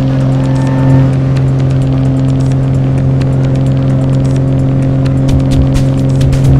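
A stunt plane's propeller engine droning at a steady pitch, heard from inside the cockpit, with crackling that grows near the end.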